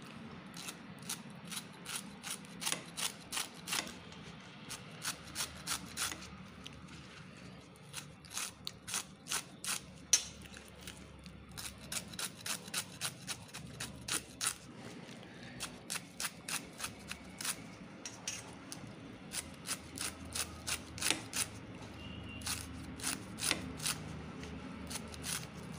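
Kitchen knife finely chopping taro (colocasia) leaves, each stroke a sharp tap of the blade on a metal surface. It comes in runs of about three strokes a second, with short pauses between runs.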